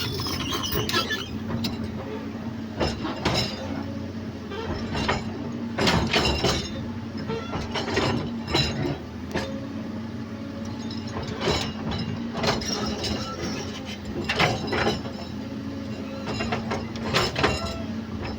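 Komatsu PC200 excavator working the ground: its diesel engine runs steadily, with irregular metallic clanks and knocks from the machine a second or a few seconds apart.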